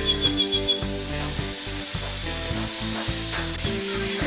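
Background music over an angle grinder with a sanding disc grinding and shaping a curved wooden handrail, a steady rasping hiss beneath the tune.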